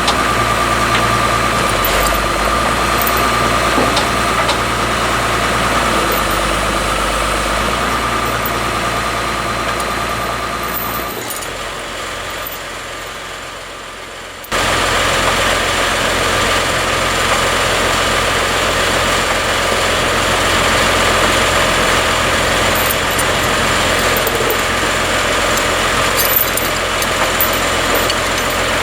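Large sawmill machinery running with an engine-like drone and a steady high whine. About eleven seconds in, the sound fades and thins out, then comes back suddenly at full level about fourteen seconds in.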